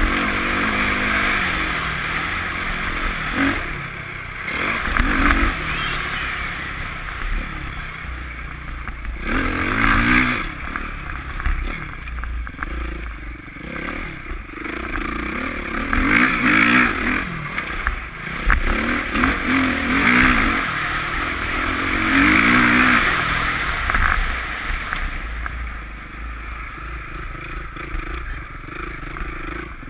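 Dirt bike engine running under way, its pitch rising and falling repeatedly as the throttle is opened and closed, then easing off near the end.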